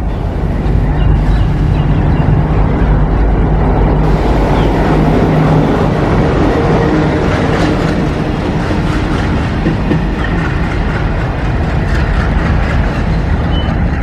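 ALCo WDM-3A diesel locomotive, with its 16-cylinder ALCo 251 engine, running past at close range: a steady, loud engine rumble with wheels clattering over the rail joints.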